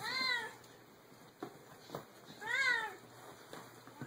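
Domestic cat meowing twice: two short meows, each rising then falling in pitch, about two and a half seconds apart. A couple of faint taps fall between them.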